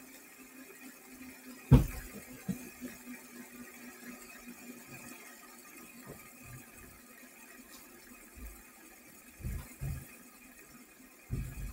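Fidget spinner spinning freely on a table with a faint, steady whir. There is a sharp knock about two seconds in and a few softer low thumps near the end.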